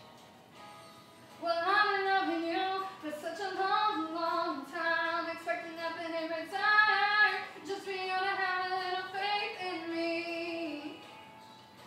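A young female voice singing a melody unaccompanied, in held phrases that start about a second and a half in and fade out near the end.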